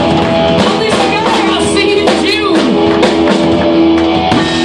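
Live rock band playing: electric guitars, a drum kit with cymbals and a woman's voice singing.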